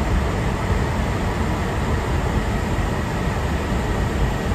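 Steady noise inside an Airbus A350 airliner at cruise: an unbroken rush of airflow and engine noise, deepest in the low end, holding level throughout.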